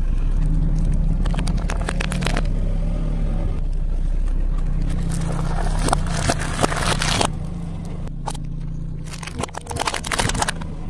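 A car engine idling steadily under a car tyre slowly crushing small objects. Three separate bouts of crunching and crackling sound as chocolate bars, eggs in their carton and a plastic toy car break under the tyre.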